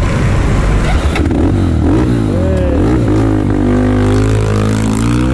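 Motorcycle engines revving a few times, then pulling away with the pitch rising steadily.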